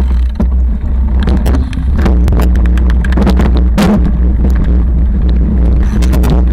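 Mountain bike rolling fast down a rough dirt and stone trail, heard through a camera mounted on the bike: a constant low rumble with many sharp clicks and rattles.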